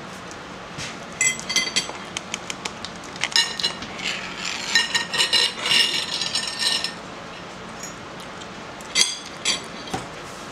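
Metal forks clinking and scraping against ceramic plates in scattered runs of small ringing clicks, busiest from about three to seven seconds in.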